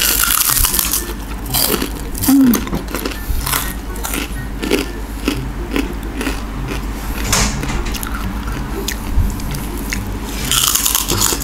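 Crisp kerupuk pasir (sand-fried crackers) being bitten and chewed, a dense crackling crunch right at the start and again near the end, with quieter chewing crunches in between.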